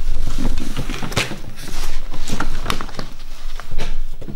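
Paper pedigree sheets being handled and turned over: irregular rustling with sharp crackles and small knocks.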